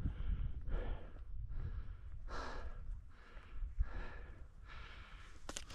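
A man breathing hard and rhythmically, a little under one breath a second, while climbing a steep hillside on foot, over a low rumble on the microphone.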